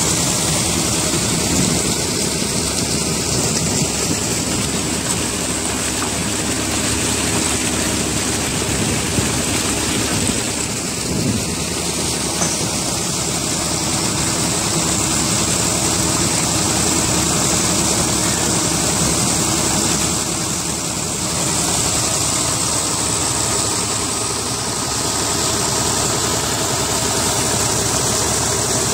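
Tractor's diesel engine running steadily, driving a tube-well pump through its PTO shaft, with water gushing from the pump's discharge pipes into a basin.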